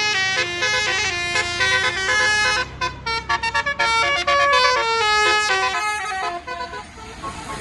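A tour bus's Basuri telolet horn playing a fast melody of short, staccato notes that jump up and down in pitch. The tune breaks off about six and a half seconds in.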